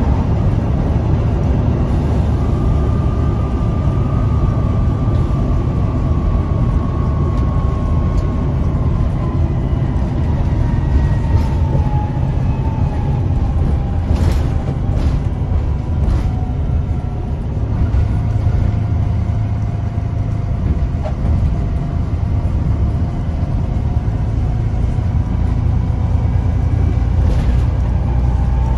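Volvo B7TL double-decker bus heard from inside the saloon while driving: a steady low engine and road rumble, with a faint whine that slowly drops in pitch. A few short clicks and rattles come about halfway through and again near the end.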